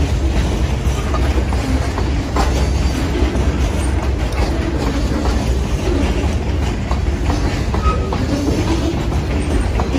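Freight train hopper cars rolling past close by: a steady rumble of steel wheels on rail with clicking over rail joints, and a brief wheel squeal about eight seconds in.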